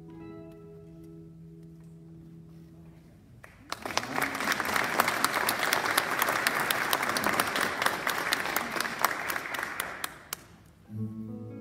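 A classical guitar's last chord rings and fades, then an audience applauds for about seven seconds; the guitar begins again near the end.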